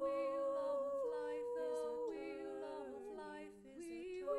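Multi-tracked a cappella female voices humming held chords in harmony, moving to a new chord about once a second.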